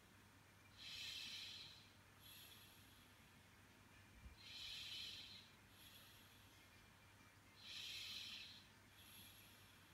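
Faint, slow breathing close to the microphone: a hissy breath about every three to four seconds, with softer ones between, over near-silent room tone.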